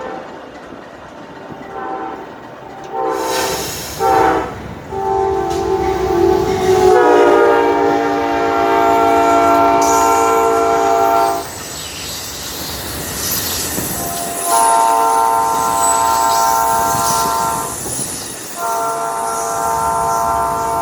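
Amtrak passenger train passing, its locomotive air horn sounding a run of blasts: a few short ones, then several long ones. The rush and clatter of the train on the rails carries on under and between the blasts.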